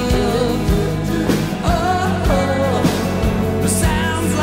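Music: a rock song with a steady drum beat, bass and a wavering melody line, with no words sung.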